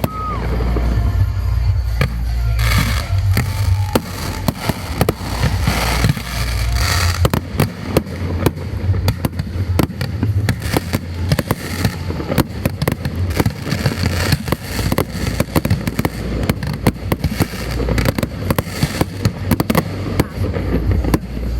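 Aerial fireworks display going off close by: a continuous barrage of shells bursting with deep booms and dense crackling, a few short whistles rising in the first seconds, the cracks growing thicker and faster from about halfway on.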